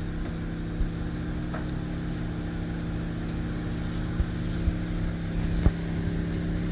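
Steady low machine hum with a few faint knocks.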